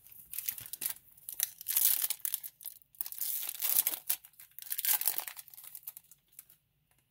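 Foil wrapper of a 2019 Topps Chrome Update card pack crinkling and tearing as it is ripped open, in several bursts of rustling.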